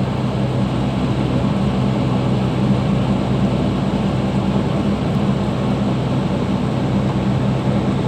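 Commercial air-conditioning unit running: a steady low machine hum with the even rush of fan air over it.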